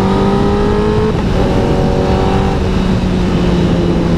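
Honda CBR1000RR Fireblade's inline-four engine pulling under acceleration, its note rising gently in pitch with a short break about a second in, then steadier. Heard through a helmet-mounted microphone, with heavy wind noise.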